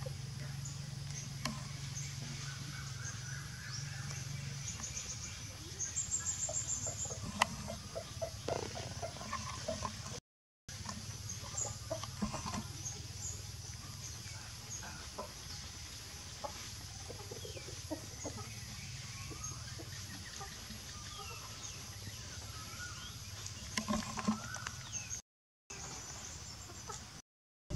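Outdoor background with a steady low hum and scattered short calls of the clucking kind, busiest in a run of short pulses a few seconds in and again near the end. The sound drops out briefly three times.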